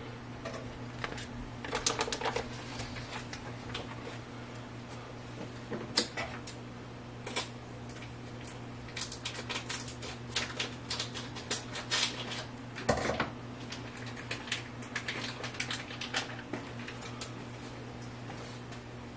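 Irregular clusters of light clicks, taps and rustles from handling food and kitchen items, with a couple of sharper knocks, over a steady low hum.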